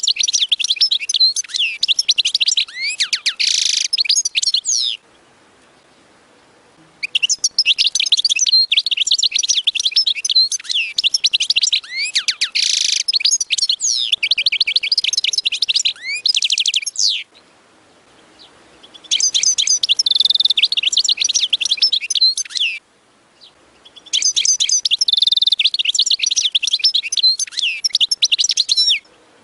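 European goldfinch singing: a rapid twittering song of quick slurred up-and-down notes, delivered in four long phrases separated by pauses of one to two seconds.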